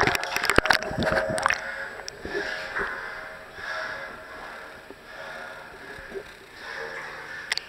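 Water splashing and sloshing around a camera held at the waterline inside a small enclosed underwater air pocket, with several sharp knocks and splashes in the first second and a half, then softer breath-like rushes every second or so.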